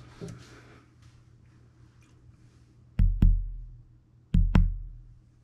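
Two pairs of deep, heavy thumps in a double-beat rhythm like a heartbeat, the second pair about a second and a third after the first, each thump dying away over about half a second. Faint rustling is heard before them.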